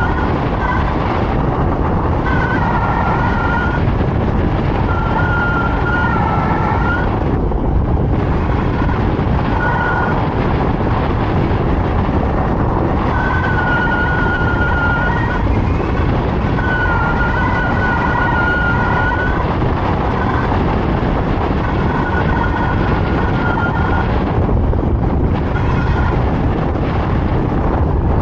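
Rush of flight airflow over the camera microphone under a speed wing, a steady loud noise, with a high whistling tone that comes and goes every few seconds, each time lasting a second or two.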